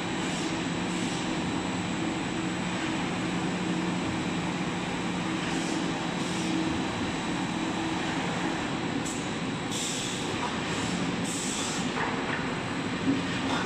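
Veneer peeling line running: steady machine noise from the conveyors and motors, with a steady hum. A few short hissing bursts come about two-thirds of the way through, and a single sharp click comes near the end.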